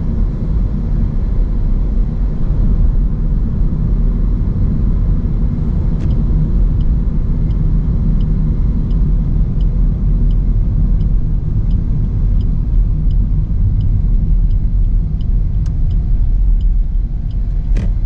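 Steady low rumble of a motor vehicle. From about a third of the way in, a light regular ticking comes in at about one and a half ticks a second, with a few single sharp clicks.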